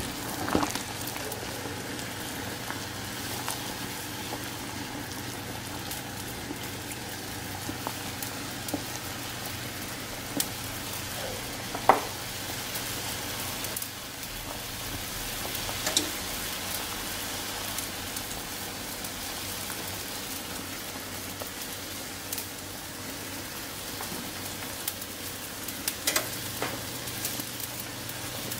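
A pot of soup at a rolling boil: a steady bubbling hiss, with a few sharp pops or clicks and a low steady hum underneath.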